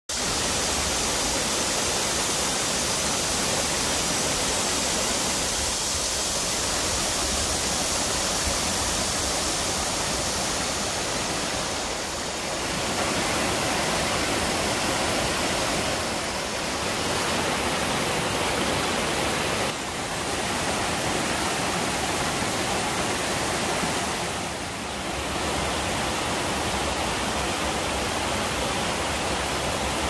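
Mountain stream rushing and splashing down small cascades over rocks, a steady noise of running water with a few brief dips and shifts in level.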